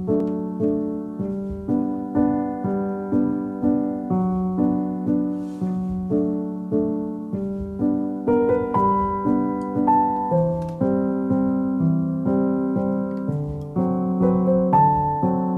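Background piano music: a gentle melody of evenly paced notes, about two a second.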